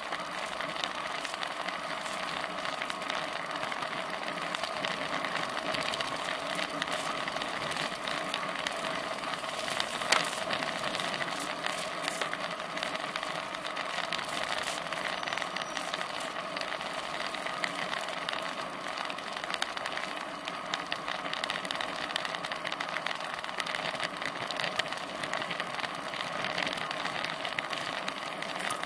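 Riding noise picked up by a Cycliq camera mounted on a moving road bicycle: a steady hum and hiss of tyres on asphalt, wind and frame vibration, with frequent small rattles and one sharp knock about ten seconds in.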